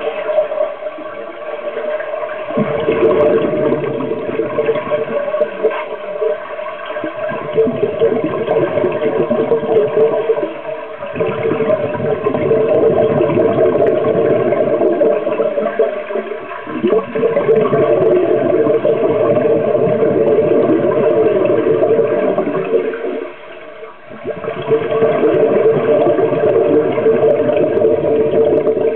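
Scuba regulator exhaust bubbles gurgling and rushing underwater, in long surges of bubbling noise broken by a few brief lulls.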